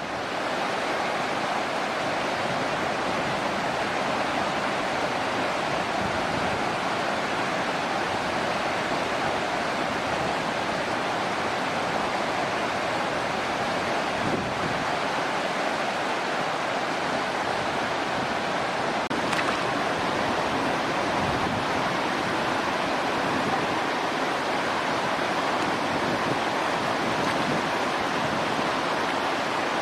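Steady rushing of running water, an even wash of noise at a constant level.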